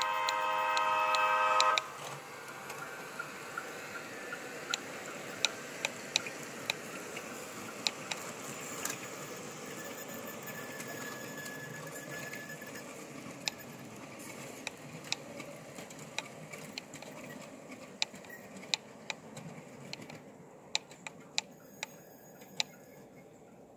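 Model diesel locomotive's sound decoder sounding a multi-tone horn, which cuts off about two seconds in. Then come irregular sharp clicks of the model train's wheels over the rail joints above a low steady rumble, slowly fading as the train moves away.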